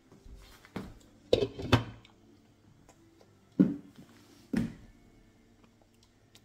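About five short puffs of breath blown out through pursed lips while eating a piece of potato, each one a quick thump on the microphone, the loudest about halfway through.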